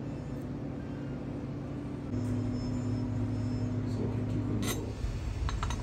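Steady low mechanical hum, louder from about two seconds in, with a brief knock just before five seconds and a few light clicks near the end.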